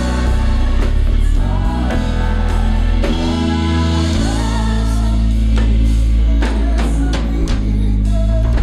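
A live band playing with bass, drum kit and keyboard, and a voice singing over them.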